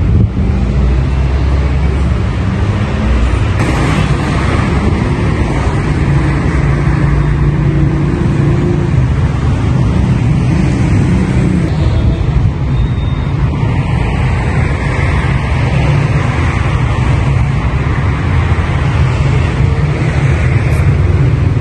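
Steady city road traffic noise: cars running along the street with a constant low rumble.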